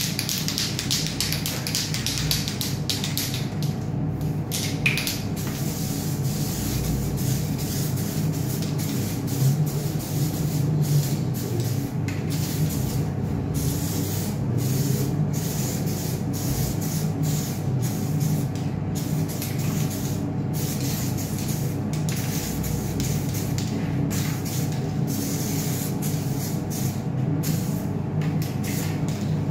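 Novol aerosol plastic primer can spraying, a hiss in many short passes with brief gaps between them, over a steady low hum.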